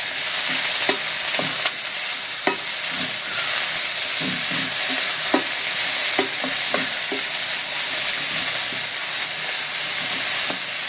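Sliced bitter gourd and finely chopped onion frying in hot oil in a pan, with a steady sizzle. Irregular utensil taps and scrapes against the pan come as it is stirred.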